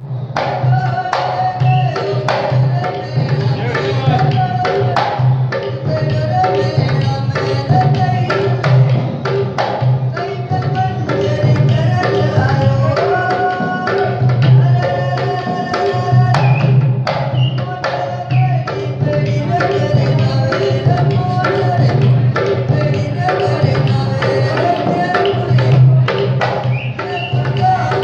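Folk music accompanying a kathputli puppet dance: a hand drum beating quickly and steadily under a melody of long held notes.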